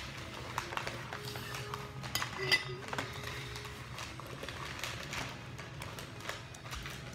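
Light knocks and clatter of things being handled on a kitchen countertop, loudest about two seconds in, over a steady low hum.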